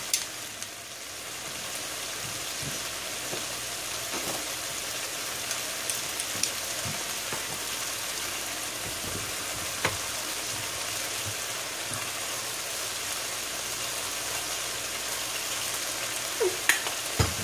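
Chicken pieces with onions, peppers and tomatoes sizzling steadily in a pan, with an occasional small click or pop.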